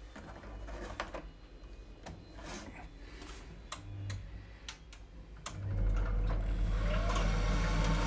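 Viessmann Vitodens 100 combi boiler being reset: a few sharp clicks, then about five and a half seconds in its circulation pump starts with a steady low hum, and a faint rising whine comes in near the end. The pump is running again after being reconnected, clearing the F1 circulation fault.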